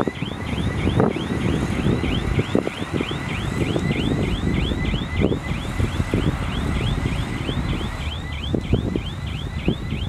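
Reverse alarm on heavy earthmoving equipment, a rapidly repeating rising chirp about three times a second that stops near the end, over the steady rumble of a diesel engine with a few sharp clanks.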